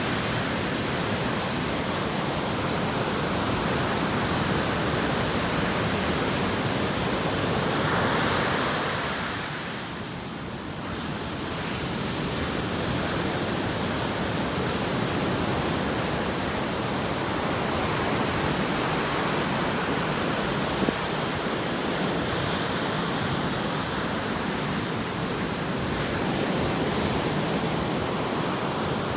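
Ocean surf washing in continuously, a steady rushing hiss of breaking waves. One wave swells louder about eight seconds in, followed by a brief lull before the wash builds again.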